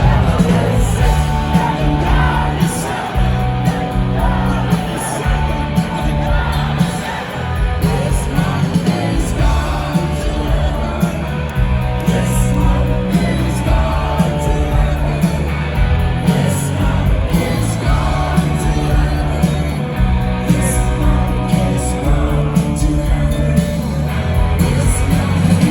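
Live rock band playing with a heavy bass line and sung vocals, loud and continuous.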